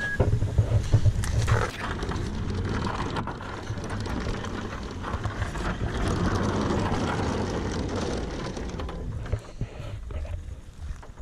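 Low rumble and rustling handling noise on a carried camera's microphone, with scattered knocks. It gets quieter and patchier near the end.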